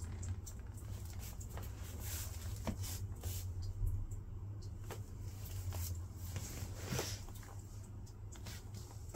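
Feet shifting in rubber flip-flops, giving a scatter of soft taps and scuffs over a steady low hum.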